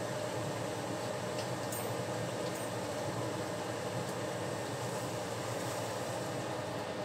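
Steady, even whir and low hum of a running fan, with a few faint light clicks between about one and a half and four seconds in.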